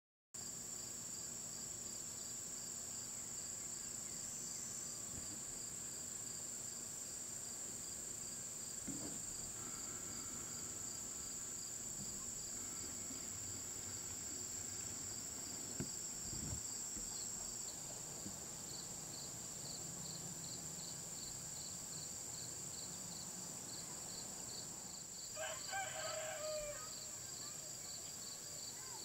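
Steady chorus of insects: one high continuous trill with an evenly pulsing chirp a little lower, the pulses growing more distinct in the second half. A couple of faint knocks come about 9 and 16 seconds in, and a brief pitched animal call, about a second long, sounds near the end.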